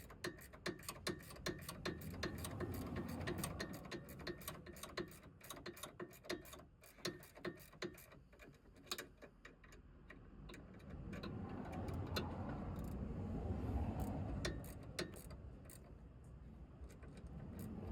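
Ratchet clicking in quick, even runs, about three or four clicks a second, as the nut on a new anti-roll bar drop link is tightened while its ball-joint stud is held steady. The clicks thin out about halfway through, and a low rumble comes up in the second half.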